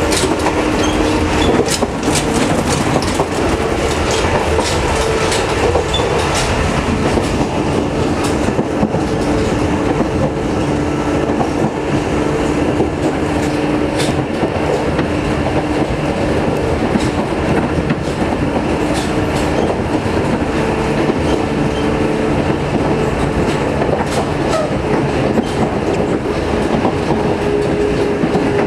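Sangi Railway electric train running on the Sangi Line, heard from inside the car: a steady rumble of wheels on rail with a held hum and scattered clicks from the rail joints.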